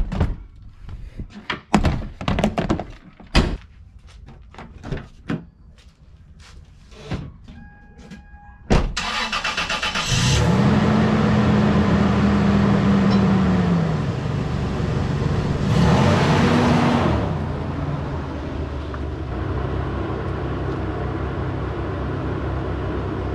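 Knocks and thumps of gear being loaded into a pickup truck and its doors being handled, then a short chime and a door slam. About nine seconds in the pickup's engine cranks and starts, runs at a fast idle that drops, picks up briefly once more, and settles to a steady idle.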